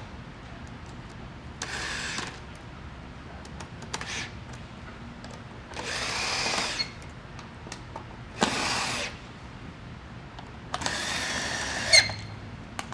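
Power drill driving bolts into a recliner mechanism in five short runs of a second or less each, with pauses between.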